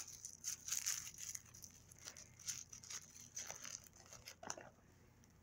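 Toy packaging being torn open and crinkled by hand: a quick run of short rustles and crackles that stops about four and a half seconds in.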